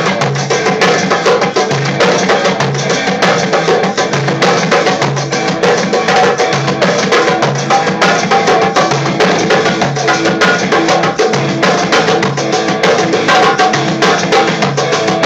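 Darbuka (goblet drum) played by hand in a steady, fast rhythm: deep low strokes every second or so under a dense run of sharp, crisp finger strokes.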